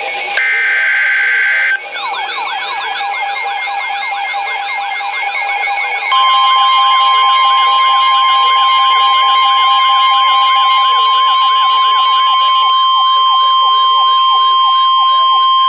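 Weather radio emergency alert: the last burst of the EAS/SAME digital data header, a harsh screech, ends under two seconds in. A siren with rapid, repeated rising sweeps then starts. About six seconds in, the steady 1050 Hz NOAA Weather Radio warning alarm tone begins and runs alongside the siren.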